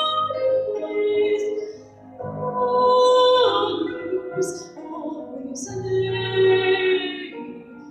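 Music: a singing voice holding long notes over instrumental accompaniment.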